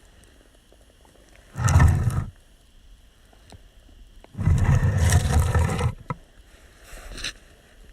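Heavy stone grinding and scraping as a secret stone door slides: a short grind, a longer one of about a second and a half, then a fainter short scrape near the end, with small clicks between them.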